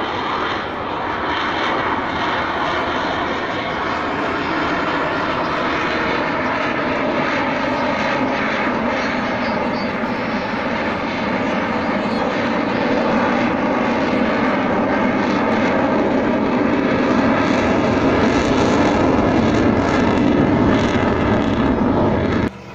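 Spanish Air Force F/A-18 Hornet jet engines, a loud, steady jet noise from the aircraft in flight. It grows slowly louder, then cuts off suddenly near the end.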